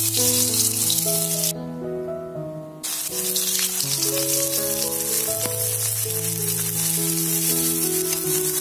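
Minced garlic sizzling in hot oil in a wok, the hiss starting sharply as it hits the oil, breaking off for about a second, then returning steadily as sliced spring onions are added and stir-fried.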